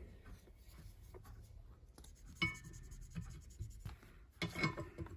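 Felt-tip highlighter rubbing faintly over a printed parts diagram, with two short squeaks of the marker about two and a half and four and a half seconds in.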